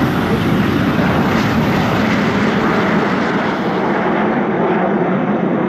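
The jet engines of a formation of Aermacchi MB-339 jet trainers run at take-off power as the jets roll down the runway together, a loud steady jet noise. Its high hiss thins out about four seconds in.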